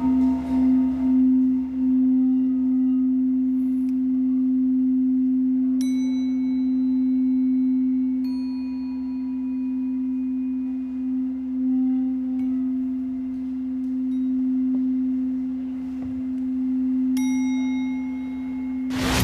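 Tibetan singing bowl sounding one steady low tone that swells and fades gently in loudness. A few light strikes ring out over it with high, clear tones, about six, eight and seventeen seconds in.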